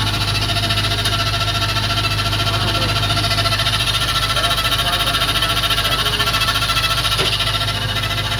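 Diesel engine running steadily at a constant speed, with a fast, even pulsing beat.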